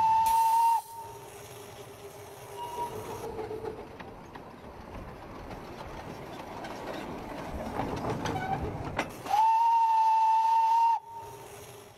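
Small steam locomotive's whistle blowing a steady single-pitched blast that stops just under a second in, then the locomotive running with hissing steam and some clicks, then a second whistle blast of about a second and a half near the end.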